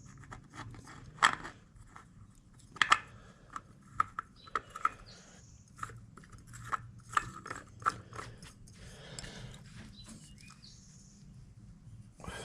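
An oil filter being spun onto a motorcycle engine by hand: irregular clicks, knocks and short scraping squeaks of metal and rubber. The two loudest knocks come about a second and about three seconds in.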